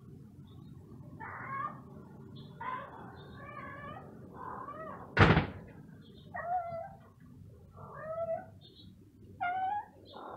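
A tabby cat meowing over and over, about seven separate meows spread across several seconds. About five seconds in there is a single loud thump, the loudest sound here.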